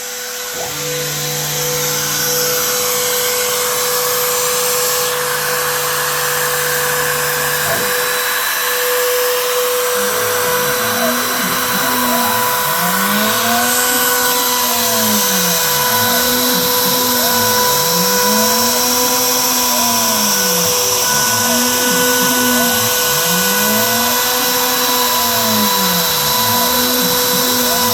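Shapeoko 5 Pro CNC router running a job, with its Makita router spindle giving a steady whine at about 18,000 rpm. For the first eight seconds the motors hold steady tones; from about ten seconds in, a whirring rises and falls in pitch about every two seconds as the machine traces a circle.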